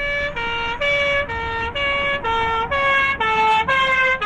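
Two-tone police siren alternating steadily between a higher and a lower note, about two notes a second.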